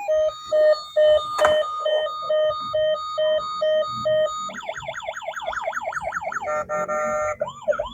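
Toy police truck's electronic siren sound chip cycling through its patterns: a two-tone beeping of about two beeps a second, then, about halfway through, a rapid up-and-down wail, a brief steady tone and more wailing.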